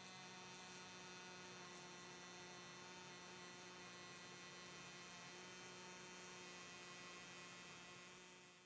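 Faint, steady electrical hum with a low droning tone and no crackle.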